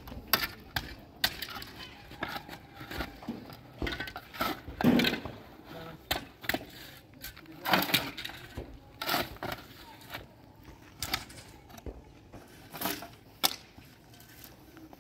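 Irregular knocks and clacks, one or two a second, with brief snatches of voices in between.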